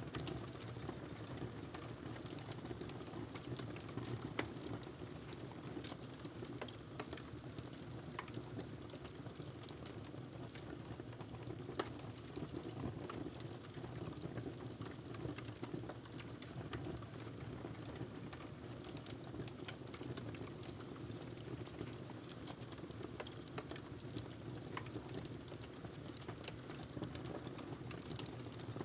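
Wood fire crackling in a fireplace: scattered sharp pops and clicks over a steady low rush of burning.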